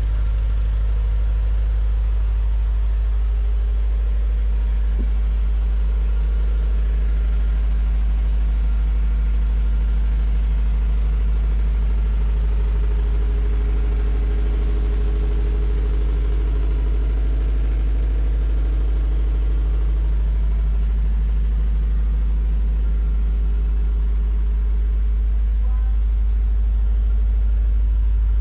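An engine running steadily at an even pace: a constant low drone with a steady hum above it.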